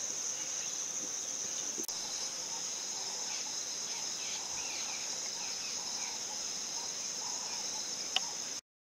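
Crickets trilling steadily, a constant high-pitched chirr, with a single click near the end before the sound cuts off suddenly.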